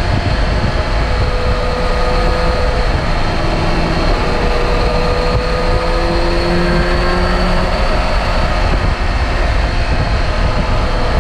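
Kawasaki Ninja H2 SX SE's supercharged inline-four, with an Akrapovic exhaust, running under way over a steady heavy low rumble. The engine note rises slowly through the middle, then fades back into the rumble near the end.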